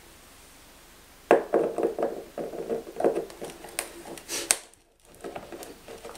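Nylon wing screw being unscrewed from a foam model aircraft with a screwdriver: a sharp click about a second in as the blade seats, then a run of small clicks and short squeaky creaks as the screw turns, with a brief pause near the end.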